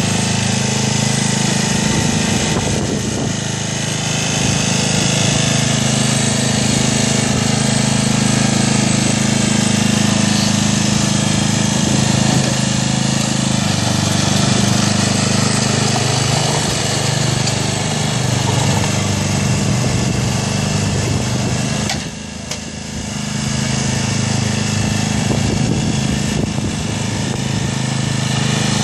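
Murray riding lawn tractor's engine running steadily as the tractor drives through snow pushing a front plow blade. The engine sound dips briefly about 22 seconds in, then comes back.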